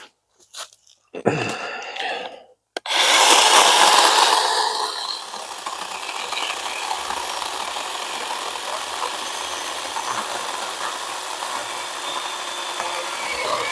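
A power saw cutting through a wild plum branch. It starts suddenly about three seconds in, is loudest for the first couple of seconds, then runs on steadily.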